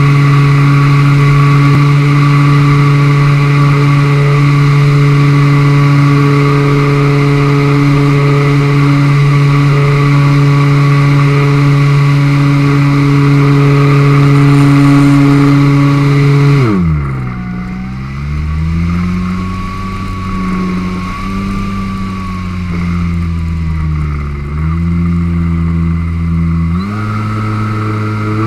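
RC model plane's motor and propeller heard from a camera on board: a steady loud drone in flight, then throttled back about two-thirds of the way in, the pitch dropping sharply and wavering low, before it is throttled up again near the end.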